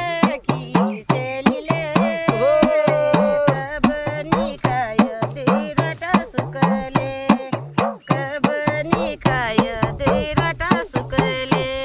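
A Kumaoni pahadi folk song: a voice carrying a wavering melody over a quick, steady drum beat of about three to four strokes a second.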